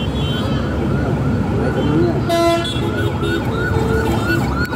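A vehicle's siren-type horn warbling in quick rising-and-falling yelps, about three a second, with a short, bright horn toot about two seconds in, over a steady rumble of traffic.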